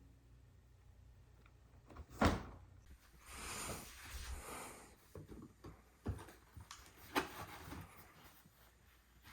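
Quiet handling noises: a sharp knock about two seconds in, a rustle for a couple of seconds after it, then a few light clicks.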